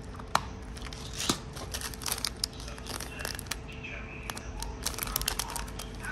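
Small plastic zip-lock and foil-backed packets of nail charms crinkling and rustling as they are handled and opened, with a run of quick clicks and taps. The loudest is one sharp click about a third of a second in.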